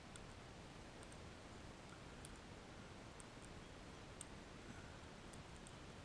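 Crimson rosellas husking sunflower seeds: faint, irregular small clicks of seeds cracking in their beaks, over a low steady hiss.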